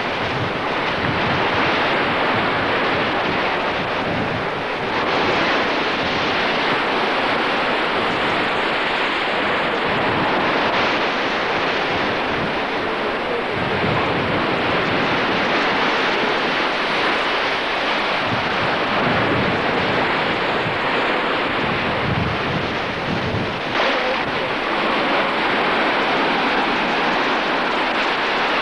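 Sea surf on a beach with wind buffeting the microphone: a steady rush of noise with uneven low gusts.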